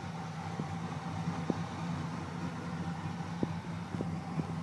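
Stock 350 Chevy small-block V8 idling steadily, a low, even hum through headers and turbo mufflers, with a few light clicks over it.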